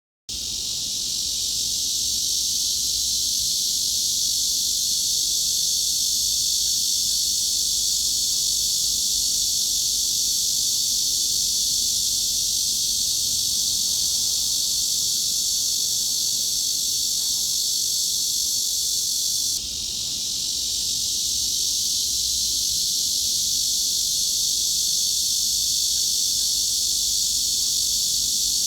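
Cicada drone used as a tinnitus masking sound: a steady, dense, high-pitched shrill with no low end. It starts abruptly just after the opening and dips briefly about two-thirds of the way through before swelling back.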